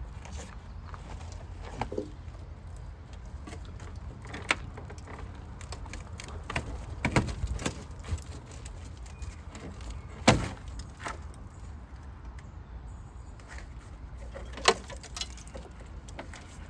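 A few sharp knocks and clanks, spaced several seconds apart, over a steady low rumble.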